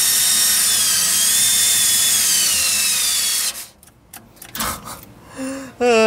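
Ridgid cordless drill/driver with a 9/16 socket driving a mounting bolt: the motor runs steadily, its pitch sinking gradually as the bolt bites, then stops abruptly about three and a half seconds in. A few short knocks of handling follow.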